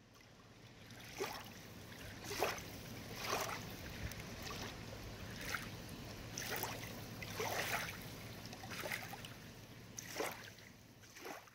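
Small waves lapping and splashing at the water's edge, a soft wash about once a second.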